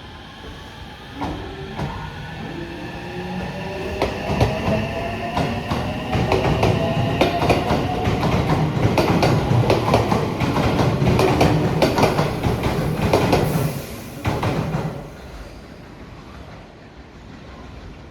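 Electric train pulling away and picking up speed: its motor whine rises in pitch while the wheels click rapidly over the rail joints, growing louder through the middle and then dying away near the end.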